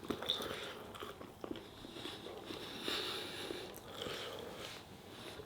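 A person chewing a mouthful of food close to the microphone, with faint wet mouth clicks.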